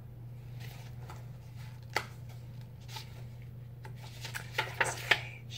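Paper pages of a picture book being handled and turned: a single tap about two seconds in, then a cluster of crinkles and clicks near the end, over a steady low hum.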